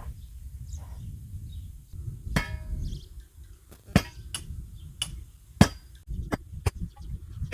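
A series of sharp, irregular knocks and clinks of hard objects struck together, one with a short ringing metallic tone about two seconds in, over a steady low rumble.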